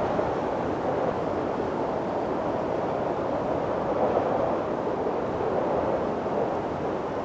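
Steady wind blowing, a dense rushing that swells and eases gently every few seconds.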